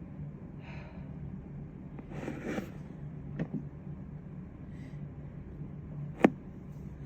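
A person breathing noisily through the nose during a sneezing fit: a short breath, then a longer, heavier breath about two seconds in. Two light knocks follow, and one sharp click near the end is the loudest sound.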